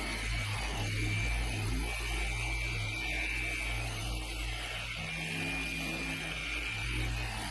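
Machine polisher running on a car's painted hood, its buffing pad working polishing cream into the paint with a steady hum and a faint high whine. The sound has been turned down in the recording.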